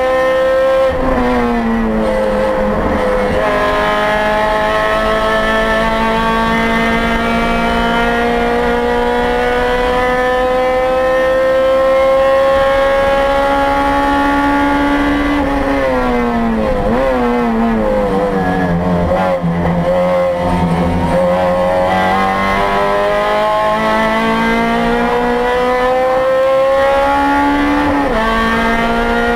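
In-car sound of a 2008 Honda Civic Si race car's 2.0-litre four-cylinder engine at full throttle: an upshift about a second in, then a long, steady rise in revs. About halfway through the revs fall in steps as it brakes and downshifts for a corner, then climb again under acceleration with another upshift near the end.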